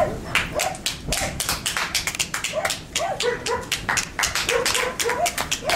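A dog barking in short, quick yaps, two or three a second, over a scatter of sharp clicks or taps.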